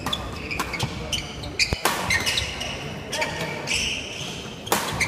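A badminton doubles rally on a wooden court: sharp cracks of rackets striking the shuttlecock several times, shoes squeaking and footfalls as the players move, over a murmur of crowd chatter in a large hall.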